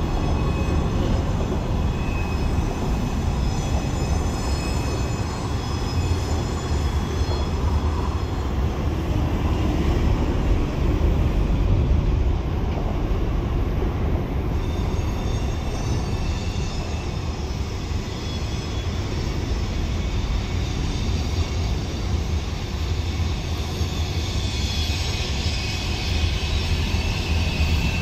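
Freight train cars rolling past with a steady rumble of wheels on rail. Thin, high-pitched wheel squeal rises over the rumble for the first several seconds, fades, and comes back from about halfway through.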